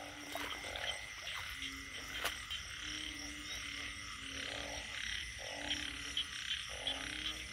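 A chorus of frogs calling: short, low croaks repeat roughly once a second from more than one frog, over a steady high-pitched background chorus.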